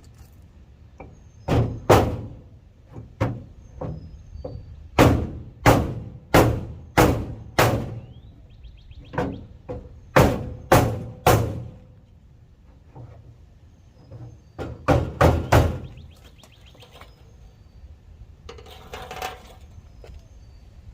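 A hammer striking a block of wood held against the dented steel side of a tool box, knocking the dent out: a long run of heavy thunks in irregular groups, with short pauses between them.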